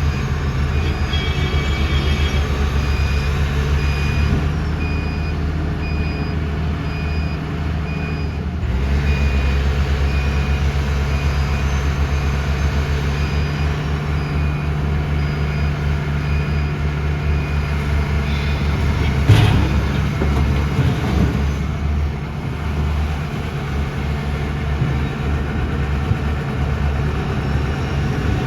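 Tata Hitachi 470 excavator's diesel engine running steadily under load, with its warning alarm beeping about twice a second for long stretches. A single sharp clank comes about two-thirds of the way through.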